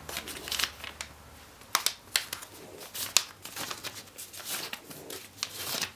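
Origami paper being handled and folded: crisp rustles, light taps and rubbing as a crease is made and pressed flat.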